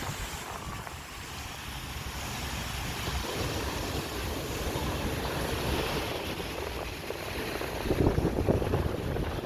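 Sea waves washing and breaking on the shore, with strong wind buffeting the microphone in heavy low rumbles that get stronger near the end.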